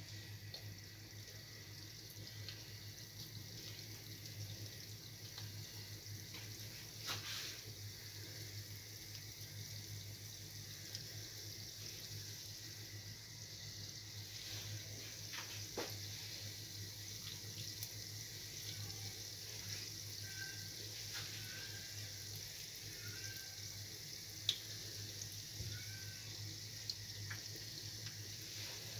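Dough rings frying in hot oil in a frying pan, a steady faint sizzle, with a few short clicks as more rings are laid in.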